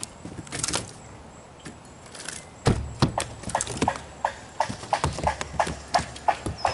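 A landed bass flopping on the boat deck: a run of quick slaps and thumps, about three a second, starting about two and a half seconds in.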